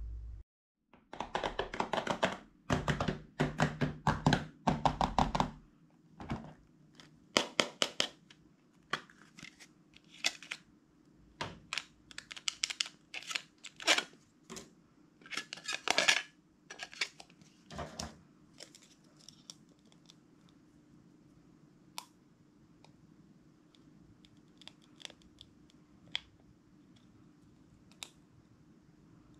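Hands handling and opening a small clear plastic box of toy figures: plastic lid and case clicking and scraping, with a dense run of crinkly, tearing-like handling noises in the first several seconds, then sparser single clicks and taps.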